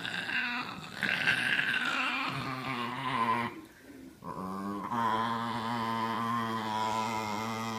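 Small dog growling as a hand tries to take its bone: guarding the bone. One growl, a short break about three and a half seconds in, then a second, steadier growl held for about four seconds.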